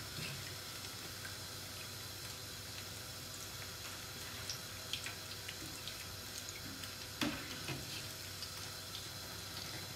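Zucchini fritters frying in a pan of hot oil: a steady, quiet sizzling hiss. A few light utensil knocks come through, the loudest a little after seven seconds in, as fried fritters are lifted out to drain.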